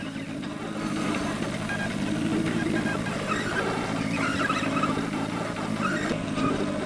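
A steady engine hum running evenly throughout, with faint voices in the background.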